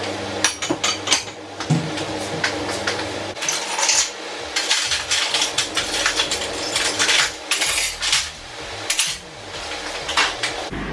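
Crockery and cutlery clinking and clattering in a string of sharp knocks as plates are taken from a kitchen cupboard and utensils from a drawer.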